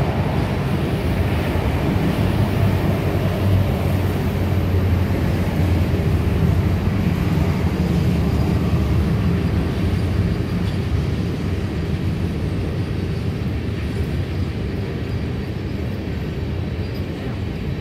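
A long freight train of crude-oil tank cars rolling past with a steady low rumble, mixed with traffic passing on the highway, including motorcycles near the start. The rumble eases off in the second half.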